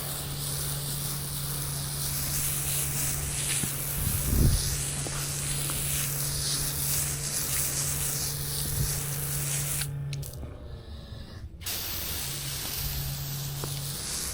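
Soft-wash sprayer hissing steadily as it lays a sodium hypochlorite mix onto concrete, with a steady low hum underneath. The spray cuts off about ten seconds in and starts again a second and a half later.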